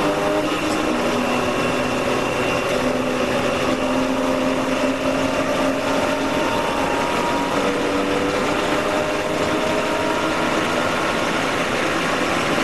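Porsche race car's engine heard from inside the cockpit under full acceleration, its note climbing steadily in pitch and dropping back at upshifts about a second in and again about seven seconds in, over constant wind and tyre noise.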